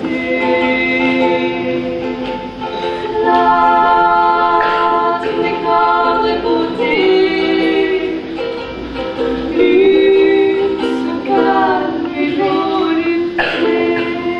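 Two women's voices singing long held notes in harmony, accompanied by a strummed ukulele.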